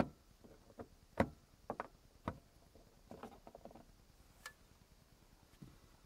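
Plastic clicks, snaps and scraping as a flathead screwdriver pries the lens cover off a Suzuki Jimny Sierra's ceiling dome light: several sharp snaps in the first two and a half seconds, a scratchy rustle about three seconds in, and one last click.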